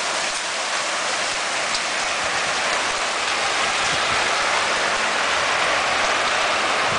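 Hailstorm: hail falling heavily and steadily, a dense, even hiss of countless small impacts with the odd sharper tick.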